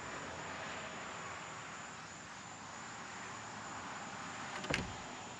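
Quiet steady hiss of room tone, with one short sharp click near the end.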